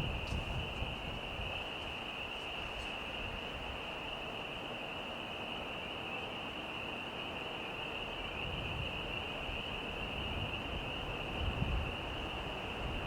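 A steady, high-pitched drone of insects, with faint low rumbles now and then.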